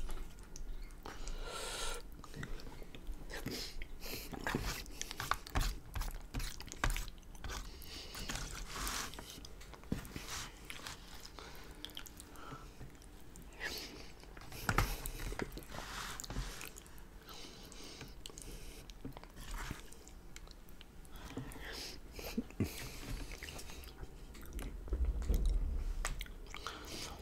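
Close-miked chewing of a mouthful of soft lasagna, wet and irregular, with occasional sharp clicks.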